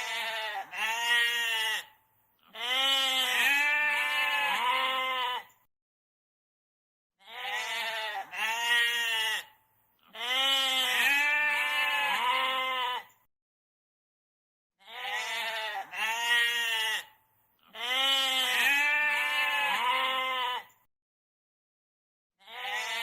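Goat bleating in a repeating pattern: a short two-part bleat followed by a longer, wavering bleat, the pair coming round about every seven and a half seconds, three times over.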